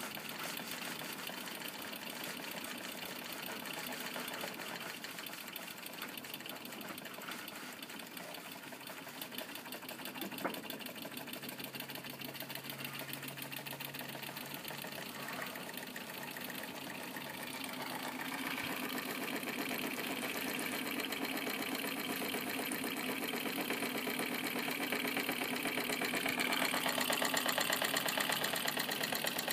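Weeden No. 14 toy steam engine running, fired by two burners, its cylinder chuffing in a fast, even rhythm with a hiss of steam. It gets louder about two-thirds of the way through and again near the end.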